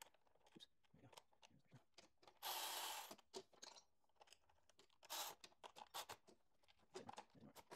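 Faint handling noises of hands working a rubber fuel hose and its clamps: scattered small clicks and scrapes, with a brief hissy rustle about two and a half seconds in and a shorter one about five seconds in.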